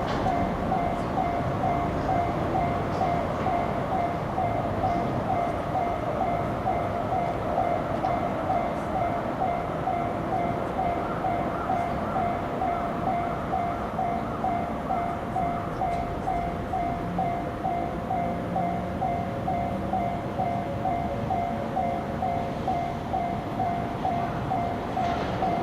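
Japanese railway level crossing's electronic warning bell ringing over and over at an even pace, with the noise of an approaching train rising near the end.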